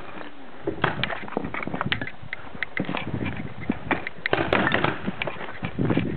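Paintball gunfire: a run of sharp, irregular pops, several in quick succession, densest about four seconds in and again near the end.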